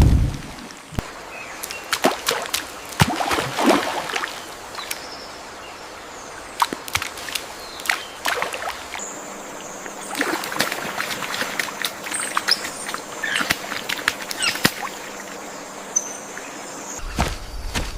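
Jungle ambience: scattered clicks, rustles and splashes, with short bird calls. A thin, high, steady whistle comes in about halfway through.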